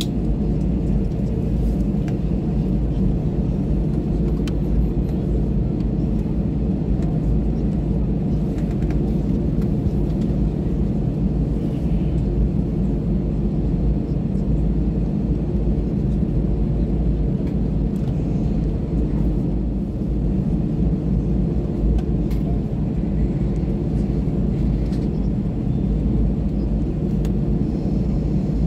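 Steady low rumble and hum of an Airbus A320-family airliner's jet engines and airframe, heard inside the cabin as it taxis, with a few faint rattles.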